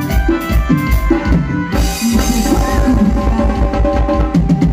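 A live grupero band playing an instrumental passage: a steady drum-kit beat with bass drum, a bass line and electronic keyboard, no singing. A cymbal crash comes in about two seconds in.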